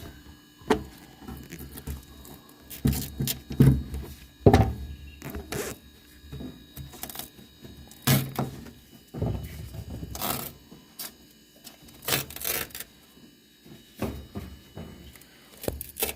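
Irregular knocks, thunks and rubbing of hand work on a Goodman gas furnace's collector box and sheet-metal cabinet, as the part is worked loose.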